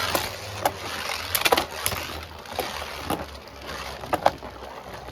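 Two Beyblade Burst tops, Blizzard Longinus and Wind Perseus, spinning and grinding in a stadium with a steady hiss, clacking sharply as they collide about ten times at irregular moments.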